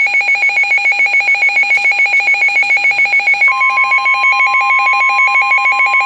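Electronic weather-radio alert: a rapid pulsing, warbling trill like a telephone ringer. About three and a half seconds in, a steady single tone near 1 kHz joins it; this is the 1050 Hz NOAA Weather Radio warning alarm tone that comes before a warning message.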